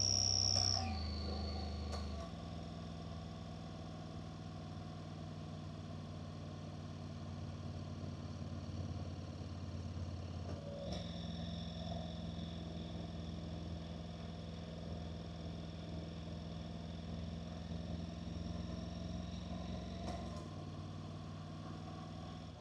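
Honda NC750X motorcycle's parallel-twin engine running during a ride. Its steady note is loudest for the first second, then steps to a new pitch a few times.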